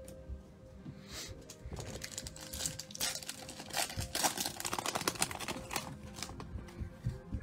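A foil trading-card pack wrapper crinkling and crackling as it is torn open by hand, busiest through the middle seconds.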